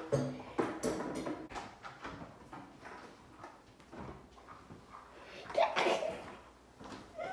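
Scattered light knocks and handling noises, with a short burst of voice about six seconds in.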